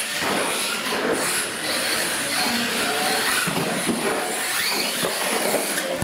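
Losi LMT radio-controlled monster trucks racing, their brushless electric motors and drivetrains whining and sliding up and down in pitch with the throttle.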